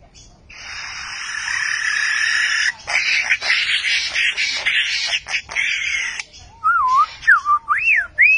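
Lyrebird mimicking mechanical and electronic sounds. First comes a steady hissing buzz with a held tone, then a quick run of clicks and rasping bursts, and near the end swooping whistles that rise and fall.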